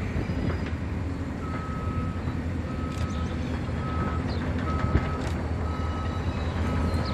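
A vehicle's reversing alarm beeping about once a second, each beep a short single steady tone, starting about a second and a half in, over a steady low engine rumble.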